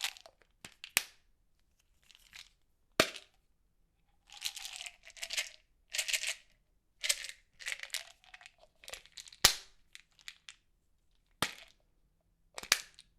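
Plastic pill bottle handled in short bursts: pills rattling inside as it is shaken, with several sharp separate clicks from the bottle and its cap, the loudest about three seconds in and near the middle.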